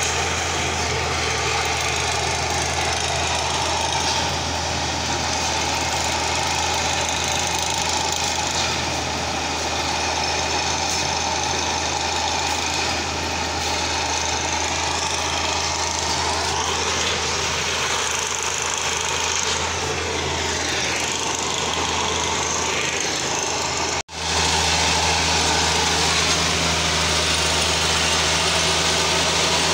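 Heavy railway diesel engine running steadily: a low, even hum with mechanical noise over it. The sound breaks off for an instant about four-fifths of the way through, then carries on with a deeper hum added.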